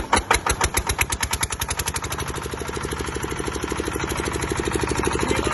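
Single-cylinder diesel engine of a 12 kVA trolley-mounted generator set catching after being hand-cranked. Separate loud firing knocks quicken over the first two seconds, then settle into a steady, fast running beat that slowly grows louder.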